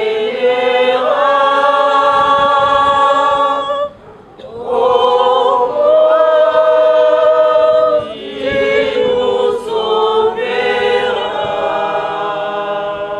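Choir singing unaccompanied in slow, long-held phrases, with short breaks about four and eight seconds in.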